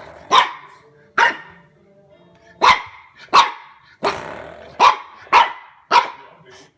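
French bulldog puppy barking at a door stopper it dislikes, about seven short, sharp barks at uneven intervals.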